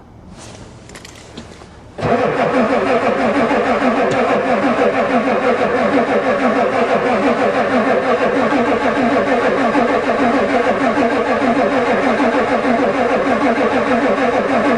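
Starter motor cranking a cold Ford diesel truck engine over with a steady, even pulsing, starting abruptly about two seconds in, without the engine catching. It is a cold start at about 4 °C, and the owner suspects the new glow plug controller is not working because it never clicks.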